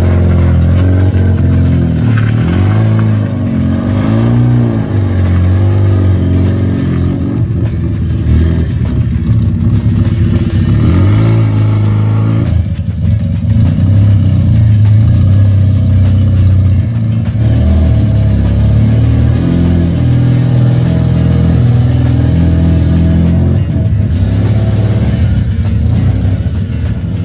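Mazda RX-7 FC's two-rotor 13B rotary engine running loudly, its pitch rising and falling as it is revved.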